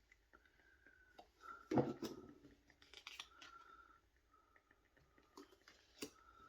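Soft clicks and rustles of tarot cards being handled and set down, with one louder knock about two seconds in. A faint steady high tone comes and goes behind them.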